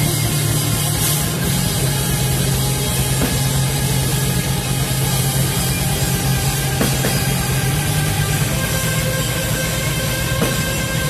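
Post-black metal band playing live at full volume: electric guitars and a drum kit in a dense, unbroken wall of sound.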